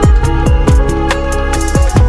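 Electronic background music with a steady beat: deep kick drums that drop in pitch, held synth notes and ticking hi-hats.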